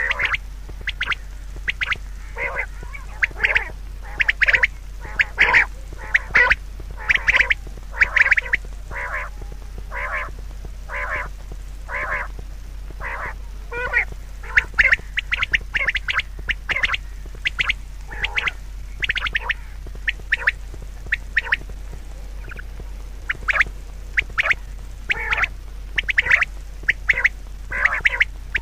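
Birds calling: a long run of short calls, a few a second, thinning out for a while in the middle.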